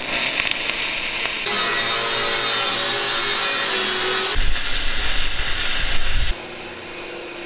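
Metal-fabrication tool sounds in quick succession, changing abruptly several times: MIG welding and an angle grinder's disc cutting into metal pipe, with a steady whine in parts.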